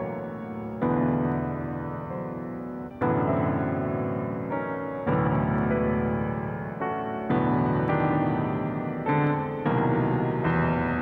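Slow background piano music: sustained chords, each struck and left to fade, with a new one about every two seconds.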